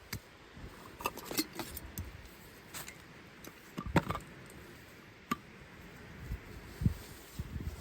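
Scattered light clicks and knocks of camping gear being handled, irregular and spaced a second or so apart, over a faint steady hiss.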